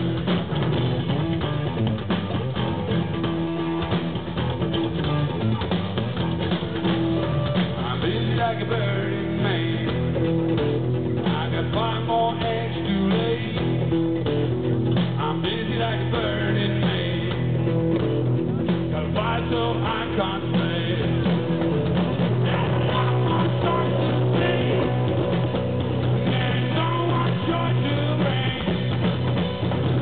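Rock band playing live: amplified electric guitars and a drum kit in a steady, continuous instrumental passage.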